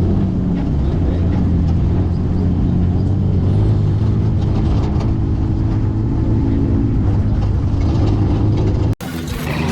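Off-road race vehicle's engine running at speed, heard from inside the cab: a steady low drone mixed with rattle and chassis noise. It cuts off abruptly near the end.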